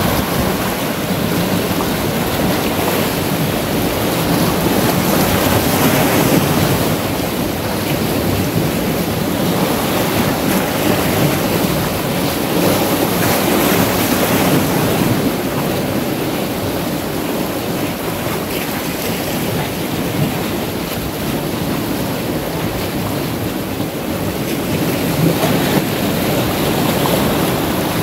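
Sea surf washing in and breaking against boulders at the shoreline: a steady rush of water that swells and eases as the waves come in.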